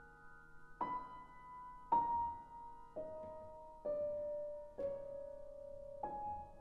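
Grand piano playing slow single notes, six of them at about one a second, each left to ring. The line steps downward and rises again on the last note.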